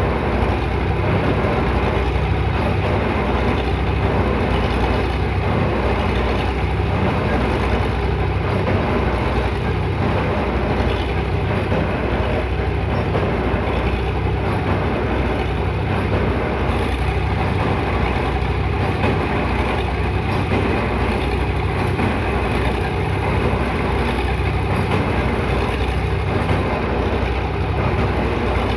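Piling rig machinery running steadily, a loud continuous engine noise with a faint repeating pulse.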